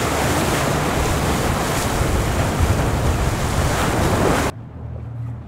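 Wind buffeting the microphone over rushing, choppy seawater, with a low steady hum beneath. About four and a half seconds in it cuts off suddenly, leaving only a quieter low hum.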